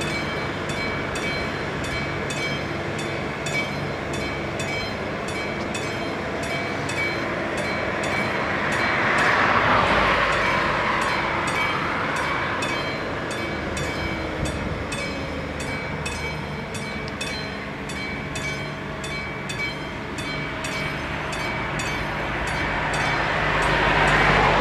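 Warning bell of an AŽD-71 level crossing ringing in a steady regular rhythm, over the low hum of an electric multiple unit standing at the crossing. A car swishes past about ten seconds in, and another near the end.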